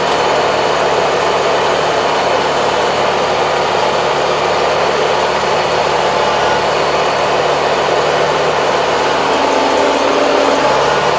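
Tractor engine running steadily with a dense mechanical drone, heard from inside the cab; its note drops lower near the end.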